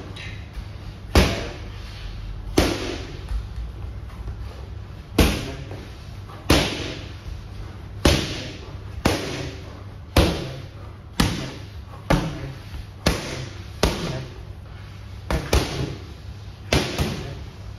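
Boxing gloves punching focus mitts: a run of about fifteen sharp smacks, roughly one a second and sometimes two in quick succession, each with a short echo in the room.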